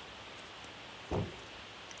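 Slime being pressed or poked by hand: one short, soft squish a little over a second in, over a steady faint hiss.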